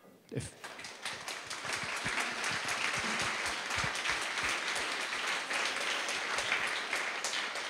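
Audience applauding: a few scattered claps about half a second in, building within a second into steady, dense applause.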